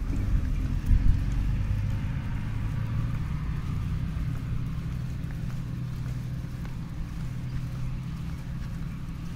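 Steady low engine hum of a vehicle running, under a low rumble of wind and handling on the microphone, with a couple of thumps about a second in.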